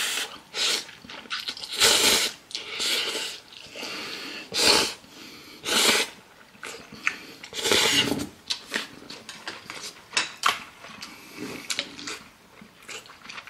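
A person slurping instant ramen noodles from chopsticks: several long, loud, noisy slurps in the first eight seconds or so, then softer chewing with short wet clicks near the end.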